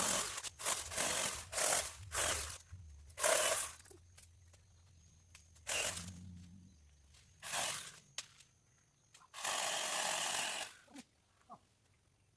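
Rustling and crunching of dry brush or leaves in a series of short bursts, with one longer rustle near the end.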